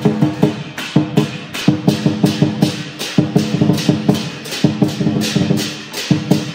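Chinese lion dance percussion: a drum beating rapid strokes with a gong and crashing cymbals ringing on the beats.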